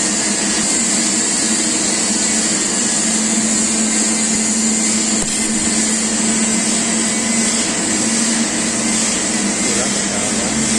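TIG welding arc running steadily: an even hiss with a low hum underneath, holding at the same level throughout.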